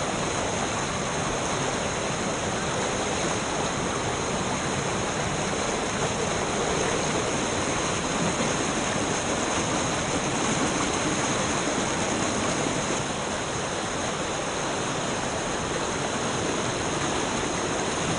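Steady rushing noise of flowing water, even and unbroken, with a faint steady high-pitched hiss riding over it.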